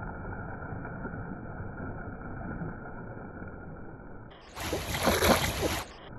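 Pool fountain jet splashing and rushing into the pool water, dull and muffled. About four seconds in, a louder, brighter rush of splashing noise lasts about a second and a half, then cuts off abruptly.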